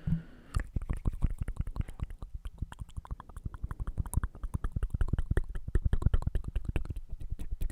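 ASMR mouth sounds close to the microphone: a fast run of wet clicks and smacks, many per second, starting about half a second in.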